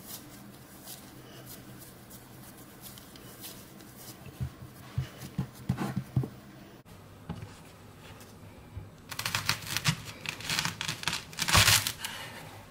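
Hands kneading and pressing a ball of shortcrust pastry dough into a bowl, with a few soft thuds around the middle. In the latter part comes a run of crinkly rustling and tearing noise, loudest shortly before the end.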